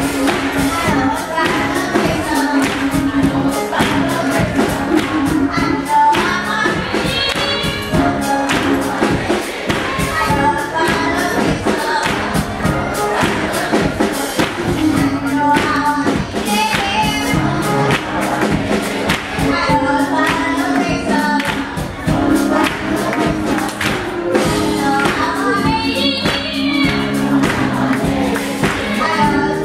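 Children's choir singing an up-tempo gospel song with instrumental accompaniment, a steady beat and hand-clapping.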